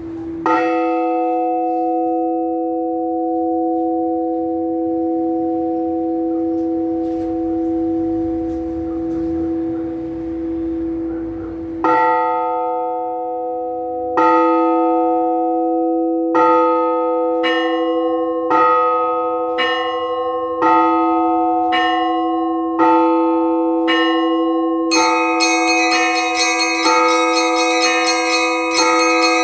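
Orthodox church bell ringing. One bell is struck and left to ring out for about eleven seconds, then struck again at quickening intervals, first about every two seconds and then about once a second. Near the end, smaller high-pitched bells join in a rapid, dense chime over it.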